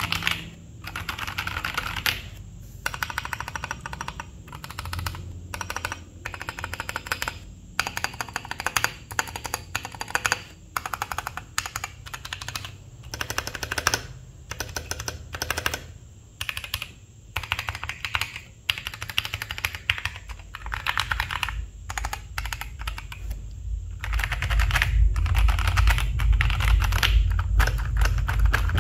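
Typing in fast runs with short pauses on a Duke65 mechanical keyboard fitted with Durock Koala tactile switches, a dense clatter of keystrokes. A low rumble joins about 24 seconds in.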